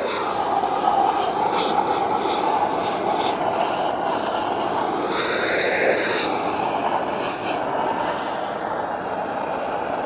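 Torch flame burning steadily as it scorches the carved wood to darken it, with a brief sharper hiss about halfway through.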